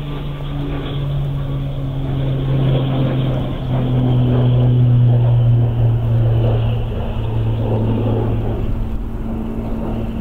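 CASA C-295M's twin Pratt & Whitney PW127G turboprops flying past low: a steady propeller drone that swells to its loudest about halfway through and drops a little in pitch as the aircraft passes overhead.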